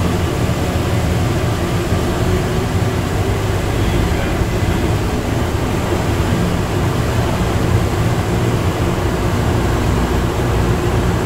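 Automated people-mover train running steadily through a tunnel, heard from inside the car: an even rumble with a low, steady hum that does not change through the stretch.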